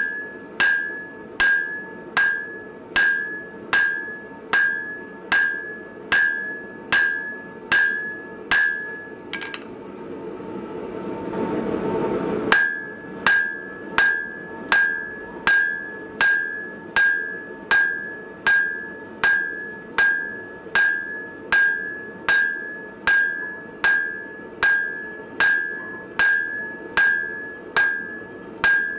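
Hand hammer striking red-hot coil-spring steel on an anvil, forging a chisel blank: steady blows about two a second, each with a ringing ping from the anvil. The hammering stops for about three seconds a little before the middle, where a rising rushing noise fills the gap, then resumes at the same pace.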